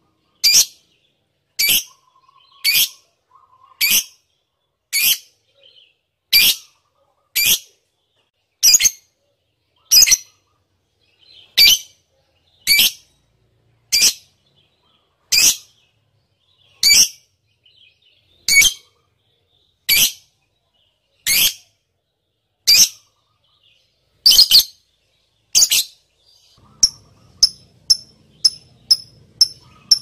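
Lovebird giving short, shrill chirps about once every second and a bit. About four seconds from the end these give way to quicker, thinner chips, about three a second, over a faint low hum.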